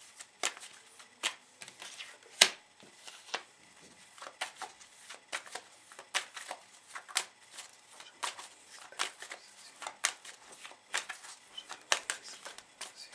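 A deck of tarot cards being shuffled by hand, the cards snapping and clicking against each other in an irregular string, two or three a second, with a few sharper snaps.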